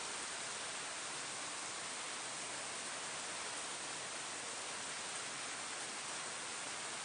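Steady rain falling on leaves: an even, unbroken hiss with no single drops or knocks standing out.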